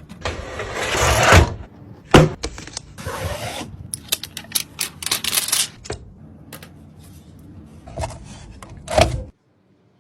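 Hands handling computer parts: a rustling slide, a sharp knock, then a quick run of small clicks and a thump near the end, after which the sound cuts off.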